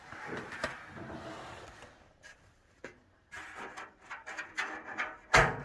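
Dryer drum being turned by hand with the new belt fitted, giving rubbing and scraping noises, a few clicks and a loud knock near the end. The belt is not seated right and keeps slipping off, which she suspects comes from putting it on wrong.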